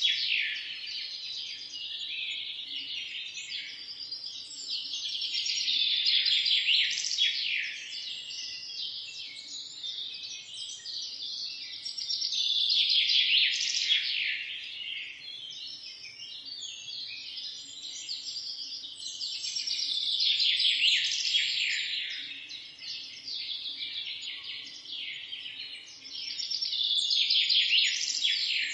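A chorus of many small birds chirping and twittering together, high-pitched and dense, swelling louder about every seven seconds.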